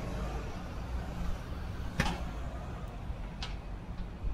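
Steady low hum of a vehicle engine running nearby, with a sharp click about two seconds in and two fainter clicks later.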